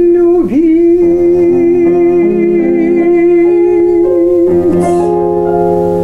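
Woman singing the closing line of a Russian romance, holding one long final note for about four seconds over an instrumental backing of plucked strings and keyboard. Near the end the voice stops and the accompaniment's final chord sustains.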